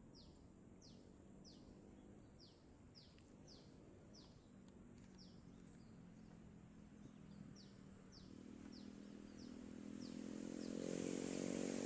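A bird calls a steady series of short, high notes, each falling in pitch, about two a second, over a faint steady high hum. From about eight seconds in, a small engine grows steadily louder as it draws near.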